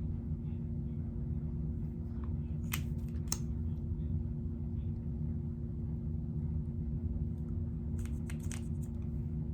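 Steady low room hum, with a few light clicks and taps: two about three seconds in and a quick cluster near the end.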